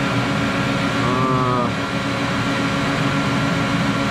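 Steady mechanical hum of running machinery, even noise with a few constant low tones, like a cooling fan. A brief hummed voice sound about a second in.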